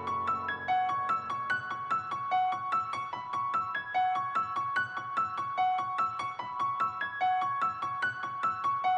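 Background music: a piano plays a repeating figure of quick, high, evenly paced notes.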